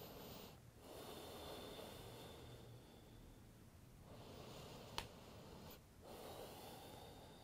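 Faint, slow breathing: long soft breaths one after another with short pauses between them. A single sharp click about five seconds in.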